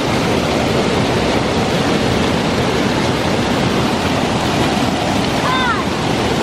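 Steady rush of water pouring over a small stream waterfall, close and loud. A few short high chirps come through about five and a half seconds in.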